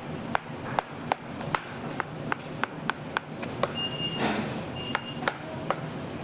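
A rapid series of sharp knocks or taps, about two to three a second, over steady background noise. Two short high beeps sound in the middle.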